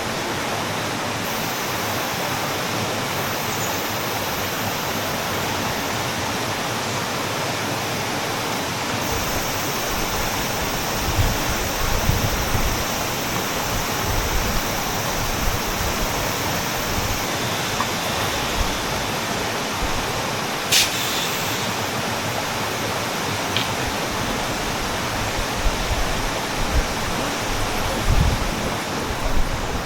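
Mountain valley stream rushing over rocks, a steady full water noise. From about a third of the way in, irregular low thumps join it, and there is a single sharp click about two-thirds of the way through.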